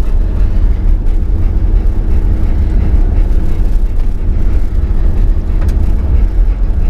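Inside a moving vehicle's cabin on a dirt track: a steady low rumble of engine and tyres with a faint steady hum over it.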